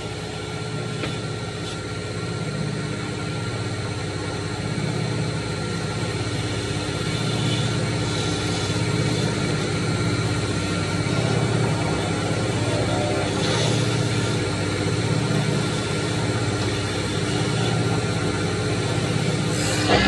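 Steady low hum of a wood copy lathe running, getting a little louder over the first few seconds, with one sharp knock near the end.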